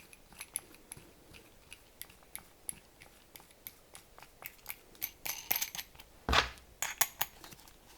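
Small hardware being handled and fitted together: light clicks and clinks of a bolt, washer, nut and plastic disc of a home-made sanding disc. The clicks come sparsely at first and busier in the last few seconds, with one louder knock about six seconds in.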